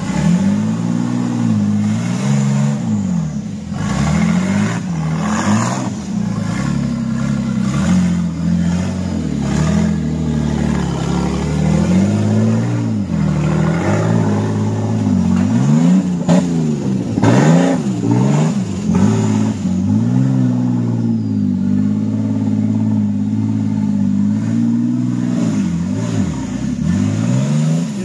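Off-road 4x4 truck's engine revving up and down again and again under load as it crawls over rough ground, with a few sharp knocks and clatters mixed in.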